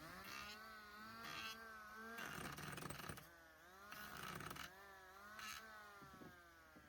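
A small motor running with a buzzing hum whose pitch wavers under load, cut by several short bursts of hiss, then winding down near the end.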